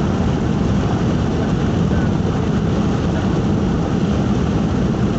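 Steady low rumble of road and tyre noise with engine hum, heard from inside a car's cabin while driving on a highway.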